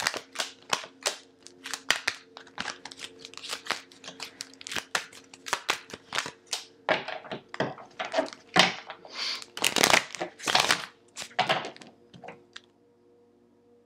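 A deck of tarot cards shuffled by hand: a quick, uneven run of crisp card snaps and slides, with a few longer, louder riffles about two-thirds of the way through.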